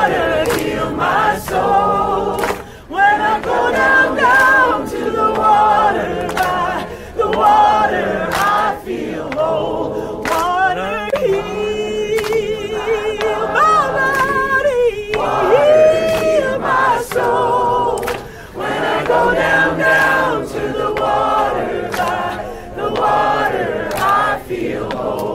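A crowd of people singing a song together in chorus, with melody lines held and changing throughout.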